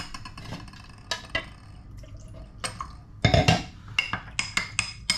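A utensil stirring a cornstarch-and-water slurry in a container, clinking irregularly against its sides, with a quicker, louder run of clinks a little past three seconds in.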